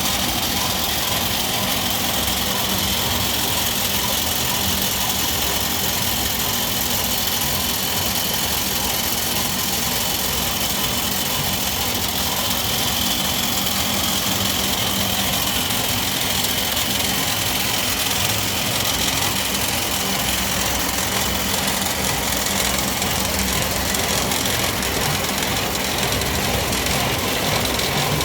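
Wood pellet mill running steadily: an even, unbroken machine drone with a constant hum.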